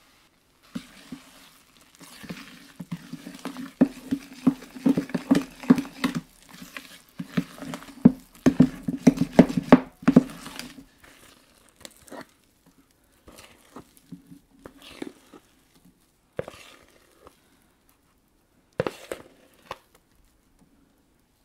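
A spoon stirring thick chocolate cake batter briskly in a plastic mixing bowl, with rapid knocking and scraping strokes, about three or four a second. Later come a few slower, separate scrapes as the batter is scraped out of the bowl with the spoon.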